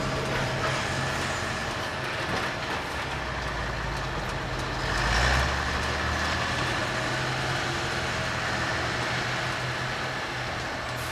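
Heavy construction machinery engine running steadily, with a louder swell about five seconds in.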